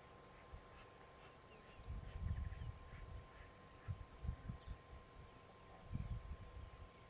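Quiet bush ambience: scattered faint bird chirps, with bouts of low rumbling noise that come and go from about two seconds in.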